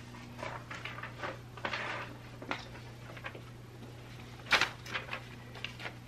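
Paper pattern sheets and fabric pieces being handled: scattered soft rustles, the loudest about four and a half seconds in, over a steady low hum.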